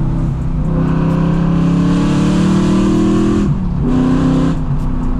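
Straight-piped BMW E92 M3's 4.0-litre V8 under throttle, the revs climbing for about three seconds. Then comes a brief dip, it pulls again, and it eases off to a steadier, lower note near the end.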